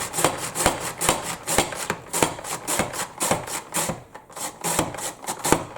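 Fennel bulb being pushed back and forth across a mandoline slicer's blade, a steady run of crisp slicing strokes at about three a second that stop shortly before the end.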